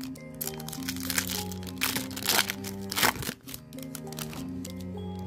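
Foil trading-card pack wrapper crinkling and crackling as it is torn open, loudest about two to three seconds in, over background music with sustained tones.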